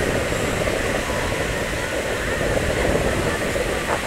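Murmur of a waiting fireworks crowd over a steady rushing background noise, with a single short click near the end.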